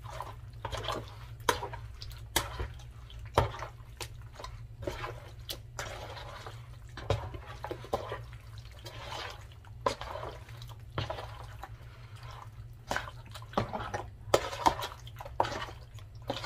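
Hands squishing raw chicken pieces through a wet marinade of tomato sauce and curry spices in a large plastic bowl: irregular wet squelches with frequent sharp clicks.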